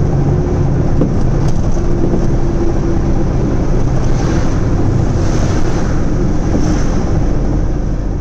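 Car carrier truck's diesel engine running steadily at cruising speed, with tyre and road noise, heard from inside the cab as a loud, even drone.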